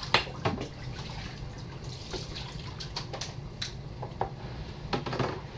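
Water splashing and dripping in a kitchen sink as a puppy is washed by hand, water scooped and poured over him from a cup, with several short sharp splashes.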